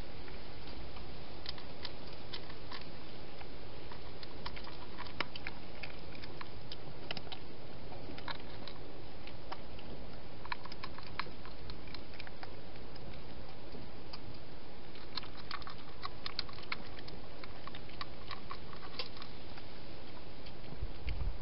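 Wild hedgehog eating: clusters of small, irregular clicking and crunching over a steady hiss.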